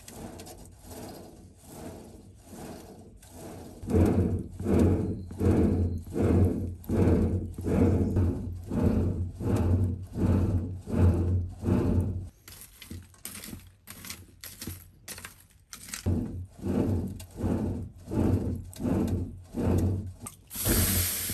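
A hand-cranked clay blower forcing air into a charcoal forge: a rhythmic whooshing pulse about twice a second, with each turn of the crank, over a low hum. It grows much louder about four seconds in, slackens and turns choppy for a few seconds past the middle, then picks up again.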